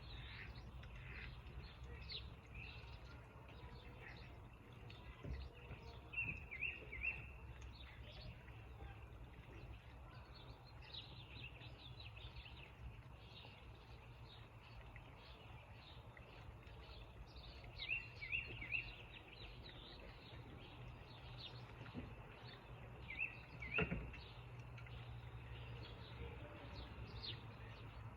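Faint songbird calls and chirps: scattered short high notes throughout, with small groups of quick chirps a few times, over a steady low rumble.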